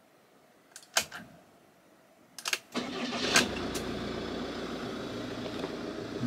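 Camper van engine being started: a few clicks, then a short crank and it catches just under three seconds in, settling into a steady idle.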